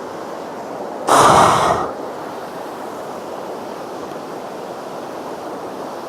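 Waterfall rushing steadily, with a short, loud blast of air on the microphone about a second in.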